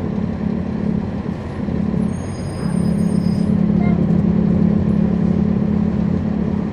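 Cummins ISL9 straight-six diesel of a 2011 NABI 40-foot transit bus running under way, heard from the rear of the bus; it grows louder about two and a half seconds in as it pulls harder. A brief high squeal sounds about two seconds in.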